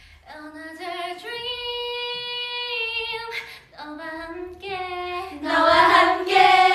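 A young woman singing a cappella: one voice holding a long steady note, then a few shorter phrases that grow louder near the end.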